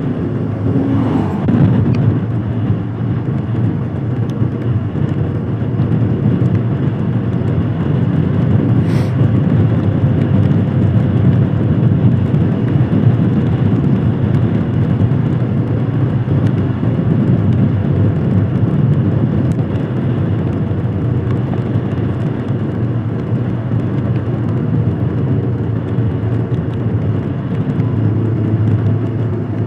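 Royal Enfield Himalayan Scram 411's single-cylinder engine running steadily while riding, with road noise, and a single sharp click about nine seconds in.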